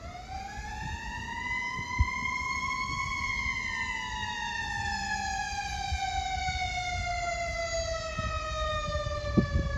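Fire engine's mechanical siren winding up to its peak about three seconds in, then slowly winding back down as the rotor coasts. A couple of sharp thumps sound near the end.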